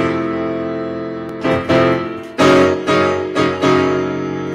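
Piano sound from an electronic keyboard played with both hands: a chord struck at the start rings and fades, then several more chords follow about every half second from about a second and a half in.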